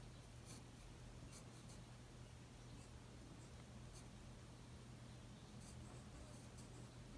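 Faint pencil strokes scratching on paper as a figure is sketched, in short irregular strokes, over a low steady hum.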